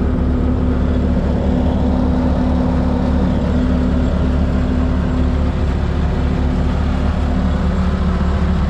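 Bobcat S250 skid steer's diesel engine running steadily at a constant speed.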